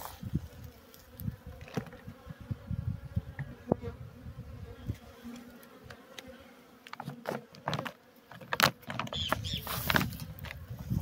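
Honeybees buzzing steadily over an open hive. In the second half, rustling and knocks come in as the hive's plastic cover sheet is handled.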